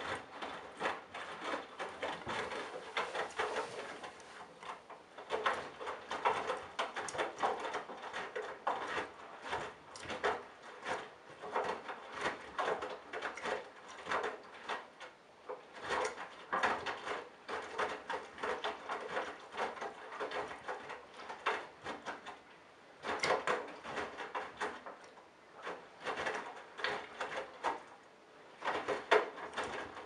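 Candy GrandO Simply-Fi front-loading washing machine tumbling a load of wet baby clothes during a wash or rinse: irregular swishing, sloshing and soft thuds as the laundry drops in the turning drum, with a few brief lulls.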